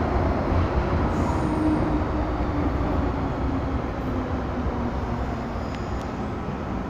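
Running noise heard from inside a moving MTR M-Train (Metro-Cammell) subway car: a steady rumble of wheels on rails with a faint humming tone that drifts slightly lower. The noise grows a little quieter toward the end.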